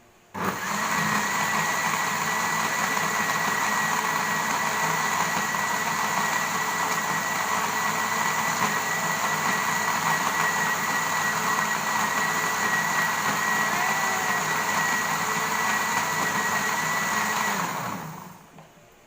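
Electric kitchen blender switched on about half a second in and running steadily with a high whine, blending limes and ginger with water to a smooth pulp. It is switched off near the end and the motor spins down.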